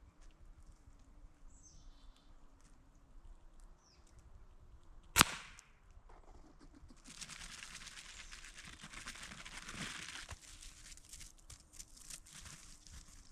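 A single air rifle shot about five seconds in, followed a couple of seconds later by about three seconds of rustling and scrabbling. A few faint short chirps come before the shot.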